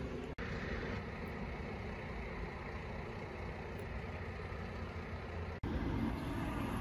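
Steady rumble of road traffic, with no clear engine note standing out. The sound cuts out for an instant twice, about half a second in and again near the end.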